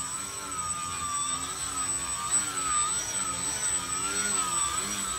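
Small foam 3D RC airplane's electric motor and propeller buzzing in a hover, its pitch rising and falling every second or so as the throttle is worked to hold the plane nose-up.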